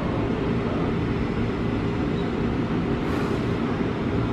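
Steady low hum of a JR 205 series electric multiple unit standing at the platform before departure, with a brief faint hiss about three seconds in.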